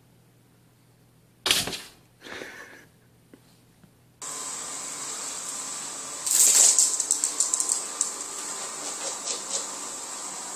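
A sharp clack about 1.5 seconds in, typical of a pop-up toaster popping. From about four seconds a robot vacuum runs with a steady whirring hum and a high whine, with a cluster of loud sharp noises in the middle.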